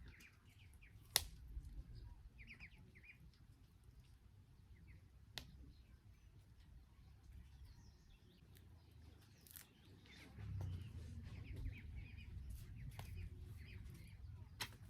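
Faint small-bird chirps, short and high, scattered through a quiet outdoor background, with a few sharp isolated clicks and a low rumble that rises about ten seconds in.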